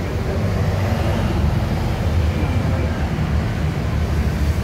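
Steady rumble of street traffic, cars and motorbikes on a busy road, with no single event standing out.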